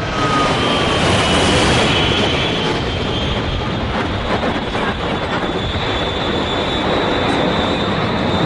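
Twin-engine jet airliner flying low overhead: a loud, steady jet engine roar with a high turbine whine, and a tone that slides down in pitch during the first second or two as the aircraft passes.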